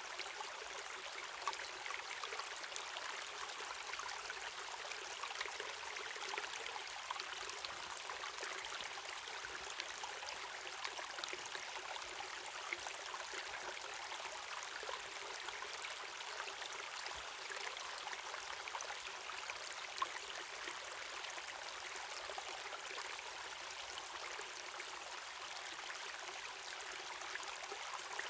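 Waterfall and stream water running: a steady rush with little low rumble, dotted with small splashes.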